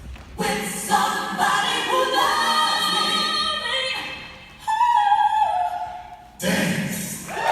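Music with choir-like singing: held, sliding notes in phrases broken by short pauses.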